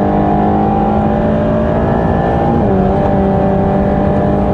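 Mercedes-AMG GT Black Series' twin-turbo flat-plane-crank V8 pulling hard at full throttle, with an upshift about two and a half seconds in where the engine note drops.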